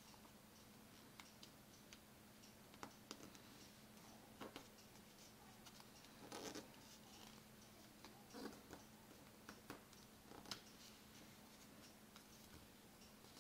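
Faint rustling and creasing of a small sheet of coloured paper being folded by hand, with scattered soft ticks and crinkles, the fullest a little past halfway, over a faint steady hum.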